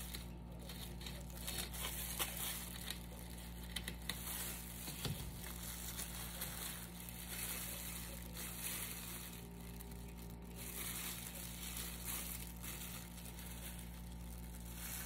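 Disposable plastic gloves crinkling as hands handle slices of banana-oat bread, with a serrated knife sawing through the loaf and a few sharp ticks in the first few seconds, over a steady low hum.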